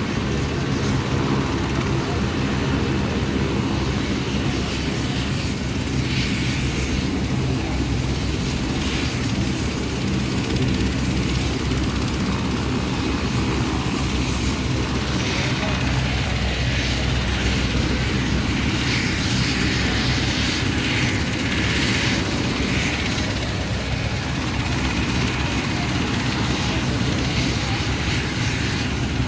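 Medical helicopter running on the ground: steady engine and rotor noise with a constant low drone.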